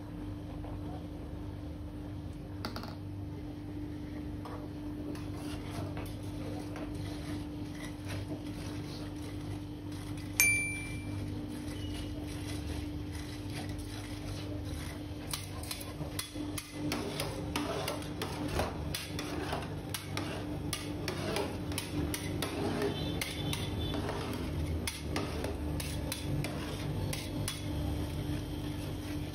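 Two metal spatulas scraping, chopping and tapping on a stainless-steel ice pan as the freezing ice-cream mixture is mixed and spread, with the strokes coming thick and fast in the second half. One sharp ringing clang of metal on metal comes about ten seconds in, over a steady hum.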